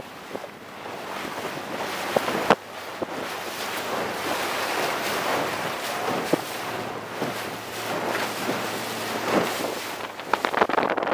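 Water rushing past the hull of a 29er sailing skiff under way, with wind buffeting the microphone. The noise swells through the middle, with a sharp knock about two and a half seconds in and crackling gusts near the end.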